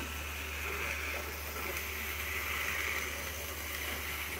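Scorpio SCR35PL label finisher running after being switched on: a steady low hum with a whirring noise that swells for about two seconds in the middle.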